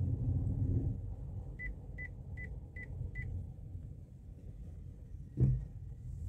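Low rumble of a car driving, with five short high beeps about a second and a half in, spaced a little under half a second apart, and a single thump about five seconds in.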